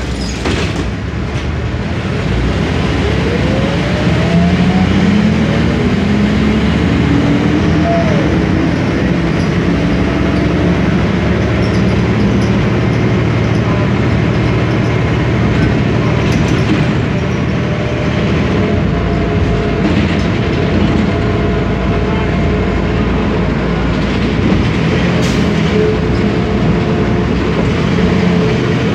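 The 1993 Sanos S215 city bus's MAN D2866UH 240 hp diesel engine and ZF Ecomat automatic gearbox, heard from inside the cabin. The engine note rises as the bus accelerates during the first several seconds, then holds steady at cruising speed.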